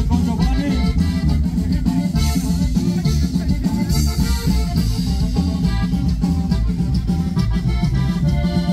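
Instrumental norteño band music: accordion carrying the melody over a steady bass and drum beat, with held accordion notes near the end.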